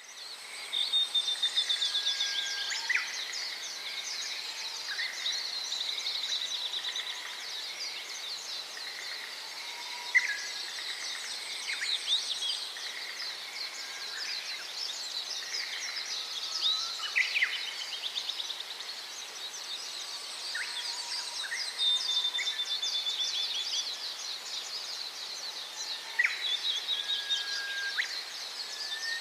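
A flock of Gouldian finches chirping and twittering without pause: many overlapping high, quick calls, with a few louder single notes standing out now and then.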